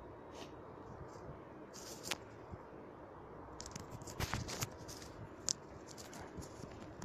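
Handling noise close to a phone's microphone while wired earphones are being untangled: scattered soft clicks and rustles. They come thickest from about three and a half to five and a half seconds in.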